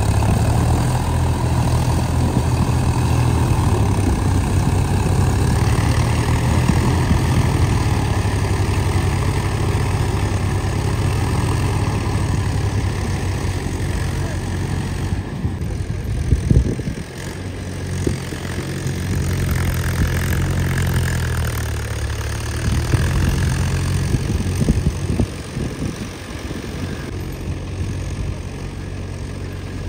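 Farm tractor diesel engines running in deep mud, a steady low engine note. It dips and shifts about halfway through and again later.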